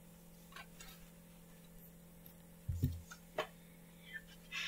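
Quiet room tone with a steady low electrical hum, a few faint scattered clicks and one soft low thump about three seconds in.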